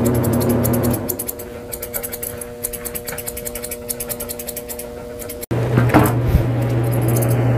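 Grooming scissors snipping rapidly and repeatedly as they trim dog hair, over a steady low hum. The hum fades about a second in and comes back louder partway through.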